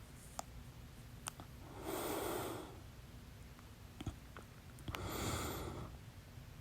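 A person breathing audibly: two breaths of about a second each, roughly three seconds apart, with a few faint short clicks in between.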